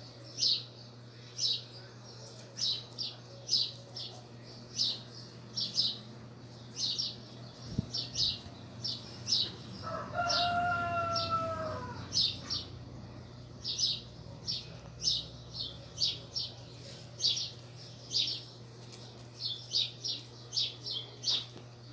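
Small bird chirping over and over in short high chirps, about one or two a second, with a longer two-second call with a slight downward bend about ten seconds in.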